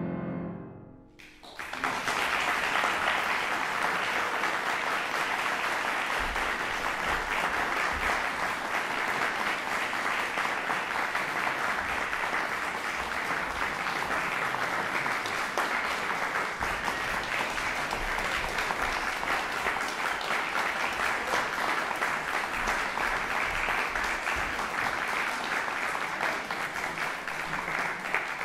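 The last notes of a grand piano fade out, and about a second in an audience breaks into steady applause that continues without a break.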